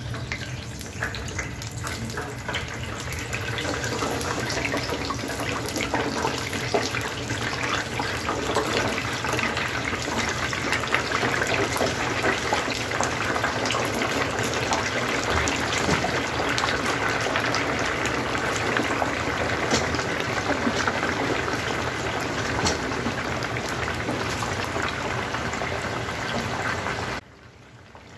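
Hot oil in a two-basket deep fryer sizzling and crackling hard around cold, wet potato slices as the water on them boils off. The sizzle builds over the first few seconds, holds steady, then drops away suddenly near the end.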